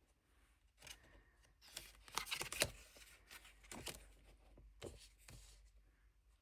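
Tarot cards being handled and flipped through one by one: a scatter of soft papery swishes and light clicks, loudest about two seconds in.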